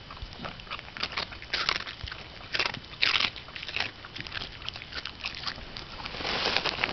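American Eskimo dog crunching and chewing a crunchy cheddar dog treat, in irregular crunches, with a longer noisy stretch near the end.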